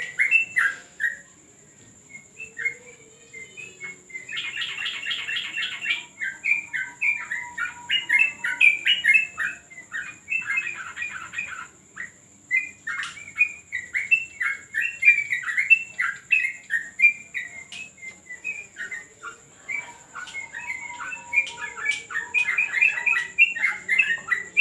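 Trucukan (yellow-vented bulbuls) singing in quick, chattering phrases of bubbly notes, with fast trills mixed in and a few short pauses.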